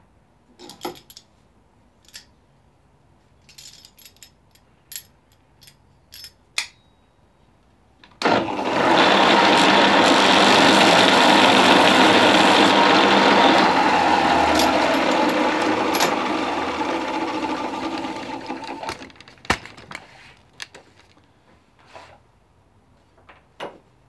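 Bench belt-and-disc sander switched on about eight seconds in, running loudly while a small piece is held against the sanding disc, then fading away over a few seconds as it winds down. Small clicks and knocks of handling come before and after it.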